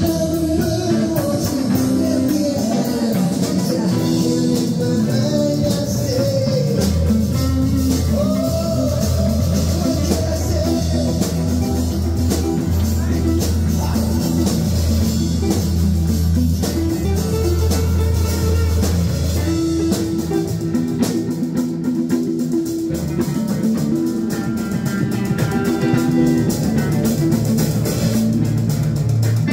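Live band playing a rock song at full volume: electric guitar, acoustic guitar, bass and drum kit, with a strong bass line underneath.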